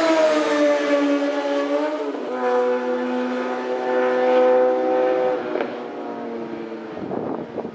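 Honda CBR600RR sport bike's inline-four engine at speed. Its note drops in pitch over the first two seconds, holds steady for about three seconds, then fades away.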